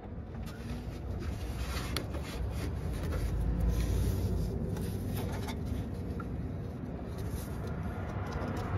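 Light scraping and rubbing of a 3/8-inch ratchet and extension being worked onto the serpentine belt tensioner and levered, with a few faint ticks over a steady low rumble.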